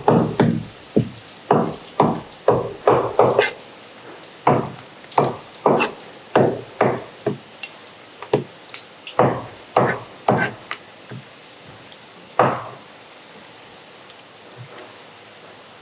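A kitchen knife chopping through a skinned fish fillet into sashimi slices, striking a plastic cutting board. It starts as a quick run of sharp knocks, about two a second, then slows to irregular strokes and stops after about twelve seconds.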